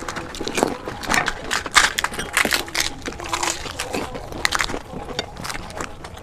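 Crisp fried puri (fuchka) shells being cracked open with fingers and crunched while eating, in quick irregular crackles.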